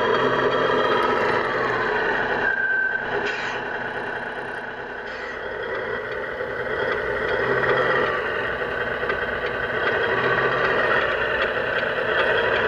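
Radio-controlled Tamiya Grand Hauler tractor truck driving along a dirt track with a loaded trailer, its electric motor and gearbox whining, with some scraping and squealing from the running gear. It dips in loudness for a few seconds in the middle, then comes back up.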